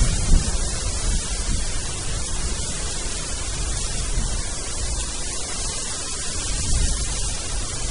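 Wind gusting across open moorland, buffeting the microphone with an uneven low rumble over a steady hiss.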